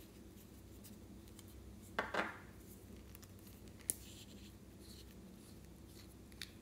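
Small plastic makeup containers handled and twisted open: a short crackling creak about two seconds in, a sharp click just before four seconds, and faint clicks and taps otherwise.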